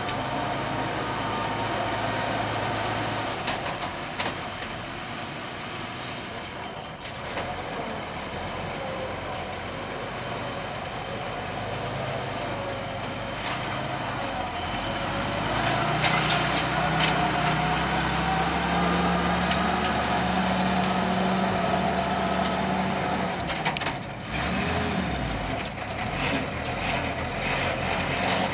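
1947 Dodge WDX Power Wagon's flathead straight-six running steadily at idle, then about halfway in pulling away under load, its note rising and getting louder. Near the end there is a brief drop before it carries on.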